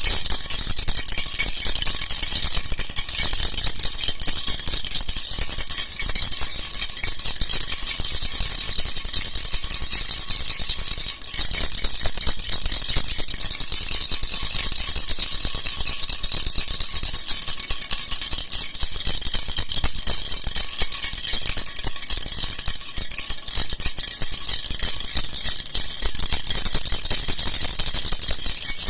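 Three-bell baby rattle (jhunjhuna) shaken steadily and without pause: a dense, continuous high jingle of small bells.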